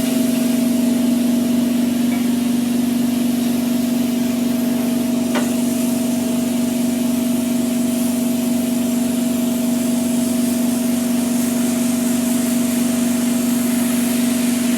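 Hydrodermabrasion facial machine's pump running steadily during a water-peel treatment: a constant low hum with a hiss over it.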